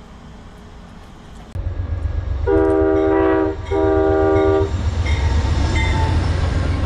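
Locomotive air horn sounding two long blasts, a chord of several tones, over the heavy low rumble of a passing train. The rumble starts abruptly about one and a half seconds in.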